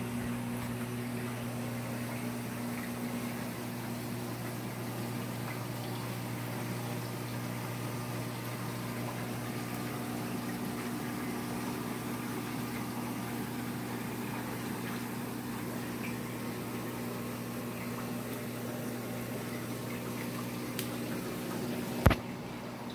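Reef aquarium system running: a steady rush of circulating water with a low, even hum from the pumps. A single sharp click near the end.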